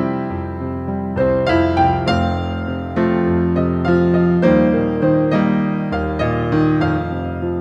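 Background music: a slow piano melody, notes struck and fading every half second or so, over a held low note.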